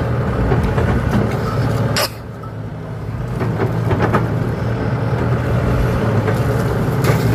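KATO crawler excavator's diesel engine running steadily, dropping off suddenly about two seconds in and building back up over the next second or so, with a couple of sharp knocks.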